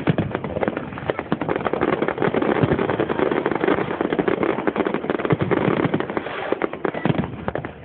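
Fireworks display finale: aerial shells bursting in a dense, continuous run of bangs and crackles.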